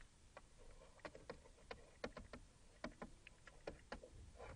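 Faint, irregular clicks and taps of a stylus on a pen tablet as handwriting is written, a few per second.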